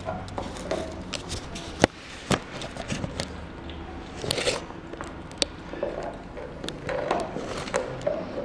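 Basset hound puppy gnawing a raw marrow bone on a tile floor: irregular clicks and scrapes of teeth on bone and bone on tile, with a few sharp knocks.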